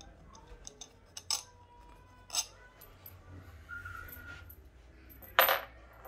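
Small metal clicks and clinks of Allen screws being backed out of an aluminium split wheel rim and handled, with a louder clink about five and a half seconds in.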